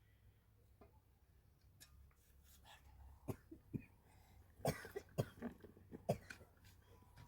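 A person coughing a few short times a little past halfway, after a couple of fainter knocks.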